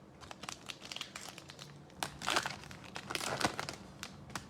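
A trading-card pack wrapper crinkling as it is torn open and the cards are handled, in a run of short crackly rustles with louder bursts about two seconds and three seconds in.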